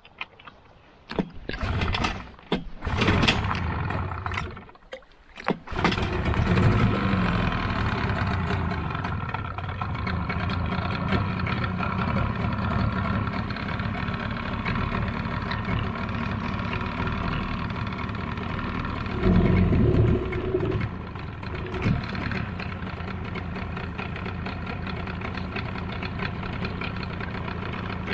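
Boat motor being pull-started: several short sputters over the first few seconds, then the engine catches about six seconds in and runs steadily, briefly louder about two-thirds of the way through.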